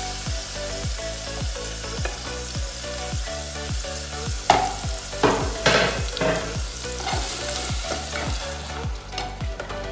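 Diced onion and tomato sizzling as they are scraped into hot oil in a pot and stirred for a sauté, with a cluster of sharper scrapes and clatters about halfway through. Background music with a steady beat runs underneath.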